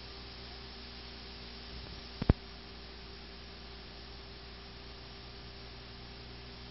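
Steady mains hum and tape hiss from a home-video camcorder tape, with one sharp click a little over two seconds in where the recording ends and blank tape begins. After the click there is only the even hiss and hum of unrecorded tape.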